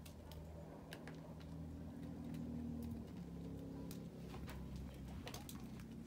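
Cockatiel pecking and cracking seeds from a millet spray: faint, scattered small clicks, with a faint low steady hum underneath.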